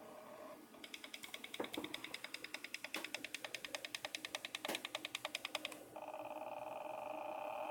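IBM ThinkPad 560 laptop making strange electronic noises: a short tone, then a rapid, even train of clicks about ten a second for some five seconds, then a steady electronic tone from about six seconds in.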